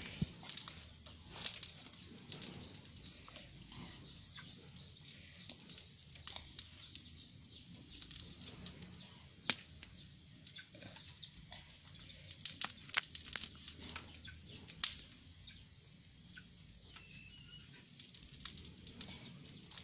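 Wood fire crackling under a wok, with irregular sharp snaps and clicks, over a steady high-pitched insect drone.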